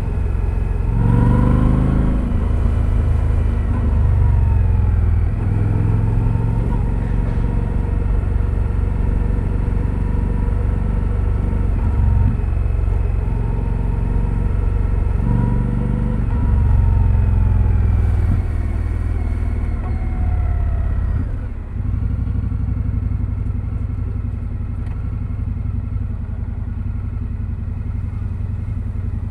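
2025 Indian Scout Sixty Bobber's V-twin running through its stock exhaust under way, pitch rising and falling several times as the throttle opens and closes. About 21 seconds in, the sound dips and settles to a steadier, quieter low running note.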